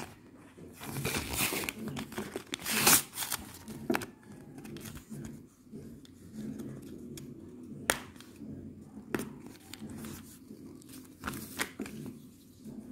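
Paper-and-plastic packaging of a microSD card being torn open by hand: crinkling and tearing, with several sharp snaps and clicks, the loudest about three seconds in.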